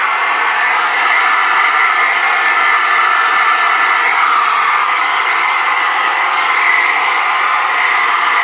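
Hairdryer running steadily: a constant rush of air with a high-pitched motor hum over it.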